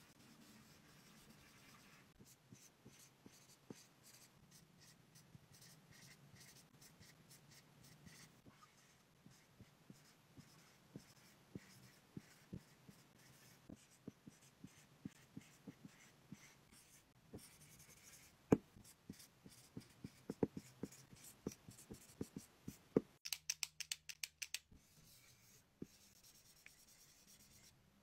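Whiteboard markers writing on a whiteboard: faint strokes and taps of the felt tips, ending in a quick run of short strokes near the end.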